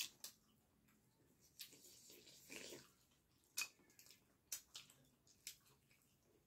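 Faint eating sounds of dhido and chicken curry being eaten by hand: sporadic wet clicks and smacks of chewing and fingers squishing the soft food, several short ones spread across the few seconds.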